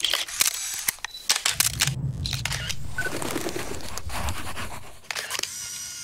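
A run of sharp clicks and scraping noises, with a low rumble through the middle.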